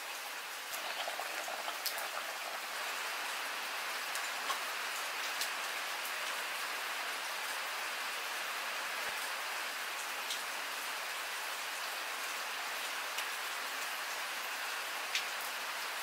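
Steady rain falling, an even hiss with a few sharp ticks of drops or taps scattered through it.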